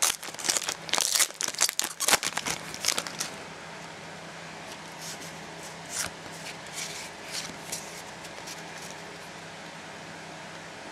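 Foil wrapper of a Pokémon Supreme Victors booster pack crinkling and tearing as it is opened, a dense crackle for the first three seconds. Then a few soft rustles and taps as the cards are handled, over a faint steady hum.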